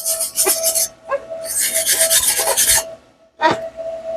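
Stiff brush scrubbing back and forth across fresh welds on a steel exhaust header, in two spells of rapid scratchy strokes, then a knock near the end. A faint steady hum runs underneath.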